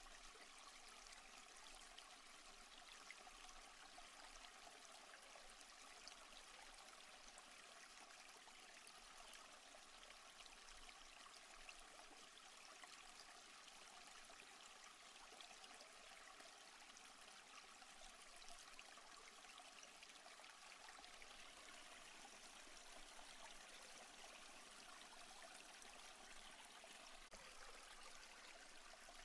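Faint, steady running water of a small stream.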